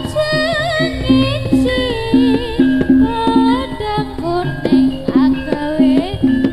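Javanese jaranan accompaniment music: a wavering, ornamented melody over a steady held low note, with drum strokes throughout.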